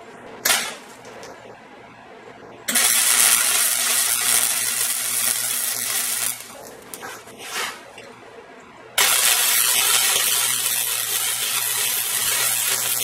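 MIG welder running two welds on steel, each a steady sizzling hiss with a low hum under it, a few seconds long. The first starts abruptly about three seconds in and the second about nine seconds in; both start and stop sharply as the trigger is pulled and released.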